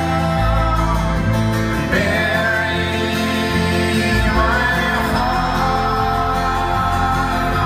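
Folk-rock band playing live: acoustic guitar, violins and double bass in a sustained passage without sung words, the bass notes changing every second or so.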